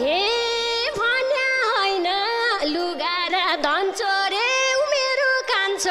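A woman singing a long, ornamented line of a Nepali dohori folk song, her voice gliding and wavering between notes, with the drums dropped out.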